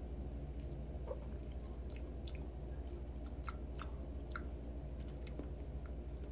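Soft mouth clicks and smacks of a person chewing and tasting close to the microphone, a scatter of small separate clicks, over a steady low hum.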